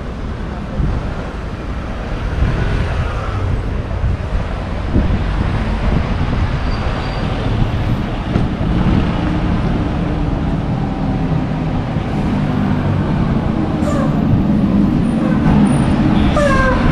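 Street traffic noise with a bus engine running close by, a steady low hum that grows louder over the second half.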